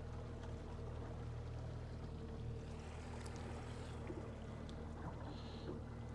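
Outboard motor running steadily at slow trolling speed, a low even hum, with water washing and churning in the boat's wake.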